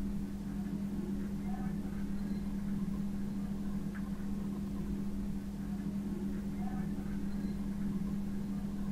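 A steady low electrical or motor hum, with faint scrapes of a spatula stirring spiced brain masala in a non-stick frying pan.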